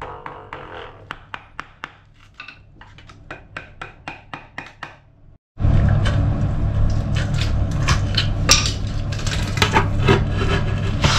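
Rapid light tapping on a marble threshold strip, about four taps a second, as it is worked loose to be lifted out after being cut free along both sides. After an abrupt cut about halfway through comes a louder stretch of scraping and rubbing with scattered knocks.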